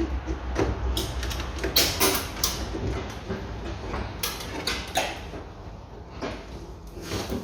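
Irregular clicks, knocks and scrapes of plastic and metal parts being handled and worked loose inside a car door, around the door trim panel and the electric window regulator.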